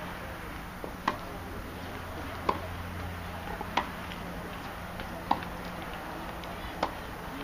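Tennis rally on a hard court: sharp pops of racket strings striking the ball about every second and a half, with fainter ticks between them.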